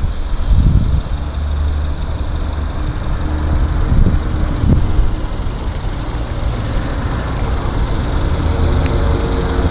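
A small 1.5-litre inline-four car engine idling with a steady low rumble, with a few brief louder low swells.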